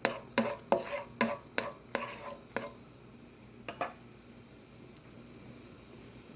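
Spatula stirring chopped garlic in hot oil in a pan: short scraping taps about three a second for the first two and a half seconds, one more a second later, over a faint sizzle.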